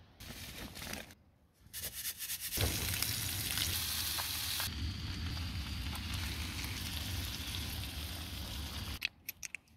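Fish fillets frying in oil in a pan on a portable gas-canister stove: a steady sizzle that starts about two and a half seconds in and stops abruptly about nine seconds in. A spoon stirs through the pan near the end.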